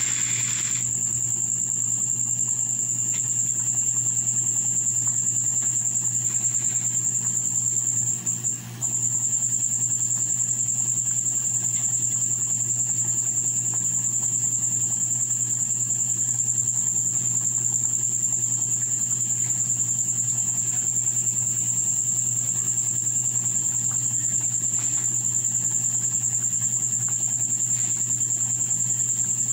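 Steady high-pitched cricket trill that breaks off briefly about eight seconds in, over a steady low hum.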